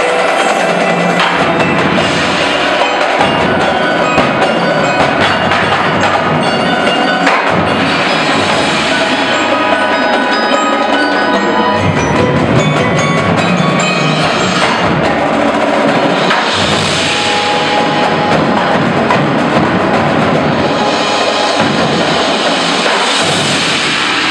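Indoor percussion ensemble playing: marimbas and other mallet keyboards ring out rapid pitched runs over a marching drumline of snare, tenor and bass drums, with cymbals.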